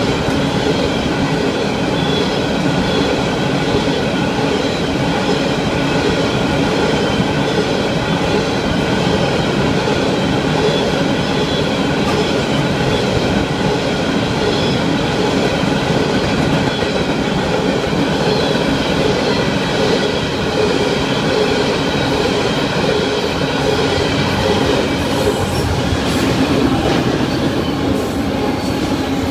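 Florida East Coast Railway freight train's cars rolling past at steady speed: steel wheels on rail make a continuous rumble with steady high ringing tones over it.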